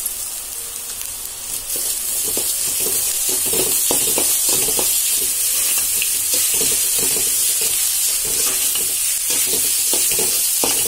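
Grated coconut sizzling in hot oil in a metal kadai while a spatula stirs it, scraping the pan in repeated strokes. The sizzle grows louder about two seconds in.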